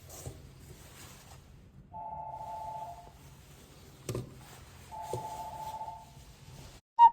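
Telephone ringing with an electronic ring: two rings of about a second each, about three seconds apart, with a short knock between them and the start of a louder beep at the very end.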